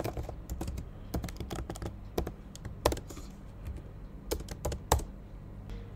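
Typing on a computer keyboard: irregular key clicks, a few a second with short pauses between them.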